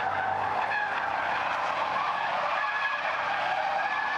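Chevrolet Corvette C8's rear tyres squealing steadily in a sustained drift, over its V8 engine running under power.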